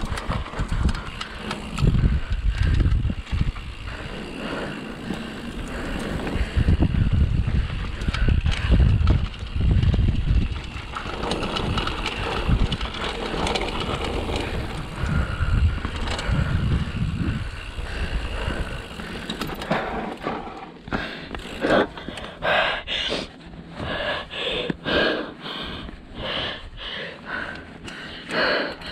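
Mountain bike riding a dirt downhill trail: gusty rumble of wind and tyres over the ground. From about twenty seconds in comes a run of short pulses with a ringing edge, about two a second.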